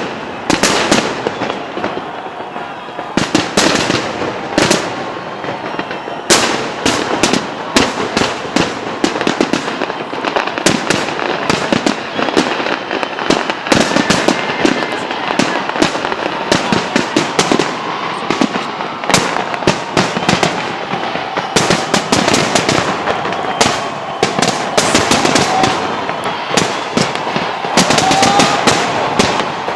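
Fireworks salute going off without a break: rapid, overlapping bangs and crackling shell bursts, with denser volleys now and then.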